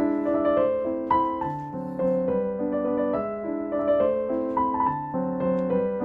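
Background piano music, notes and chords played one after another at a gentle pace.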